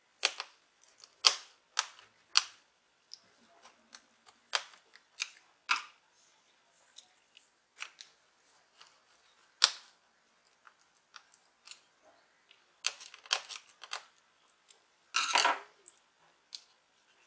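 Small screwdriver clicking and ticking on the screws that hold a Lenovo V110 laptop's internal battery, in irregular sharp clicks with pauses between them. There is a quick cluster of clicks about 13 seconds in, and a short scraping clatter just after 15 seconds.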